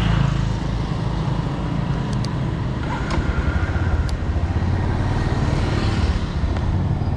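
Motorbike engine running steadily while riding, with wind and passing-traffic noise.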